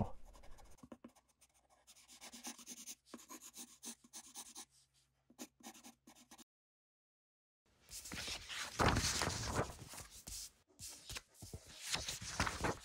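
Graphite pencil scratching faintly in short strokes on tracing paper laid over a light pad, tracing shadow shapes. After a sudden break of about a second, louder sliding and rustling of paper as the tracing sheet and photo on the pad are handled.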